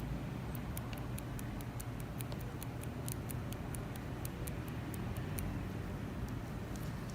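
Light, quick ticking of a microblading shading blade, held by hand, flicking pigment into eyebrow skin, several ticks a second, stopping about five and a half seconds in. A low steady hum sits underneath.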